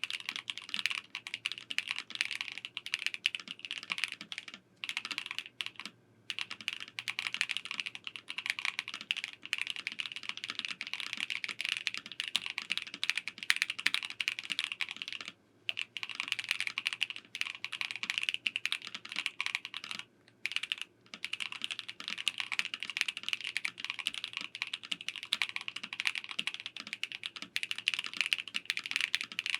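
Typing on an ASUS ROG Azoth Extreme mechanical keyboard, with pre-lubed ROG NX Snow switches with POM housings in an aluminium gasket-mounted case. A fast, steady run of keystrokes, broken by a few brief pauses.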